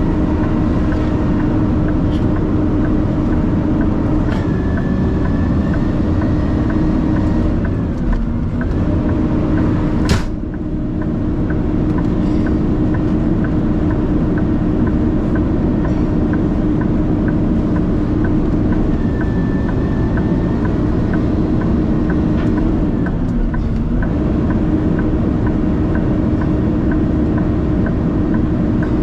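Vehicle cab noise while driving: a steady engine and road drone with a held tone whose pitch dips briefly twice, under a light regular ticking and one sharp click about ten seconds in.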